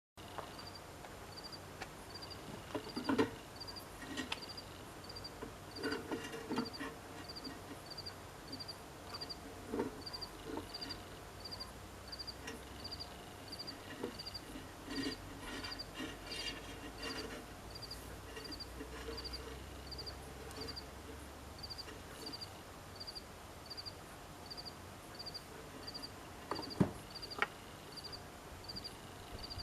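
An insect chirping steadily, a short high chirp about every three-quarters of a second, with scattered knocks and clicks over it; the loudest knock is near the end.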